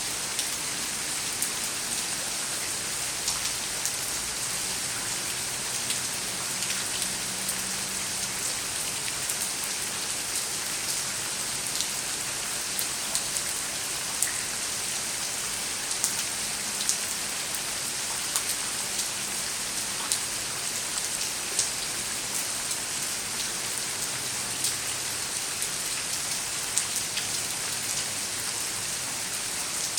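Steady rain falling on hard surfaces: an even hiss with many individual drops ticking sharply and irregularly.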